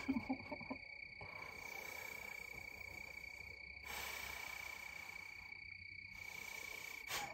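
Insects trilling steadily in one high continuous tone, faint. A few short, soft breathy sounds come in the first second.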